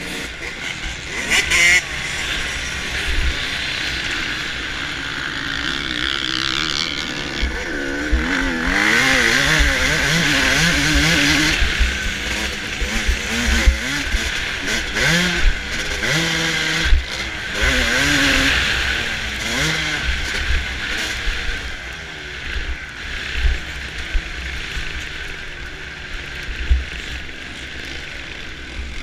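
Suzuki RM250 two-stroke motocross engine revving hard and falling back again and again as the bike is ridden flat out over a rough track, heard over heavy wind rush on the bike-mounted microphone.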